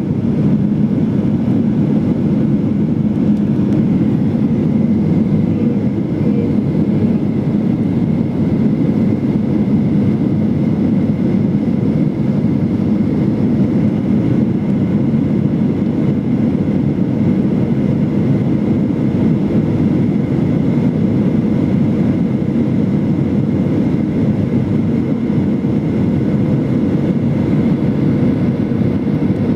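Steady cabin noise heard from a window seat beside the wing of a Boeing 737-800 in flight: a constant low rush from its CFM56-7B turbofan engines and the airflow, with a faint steady high whine.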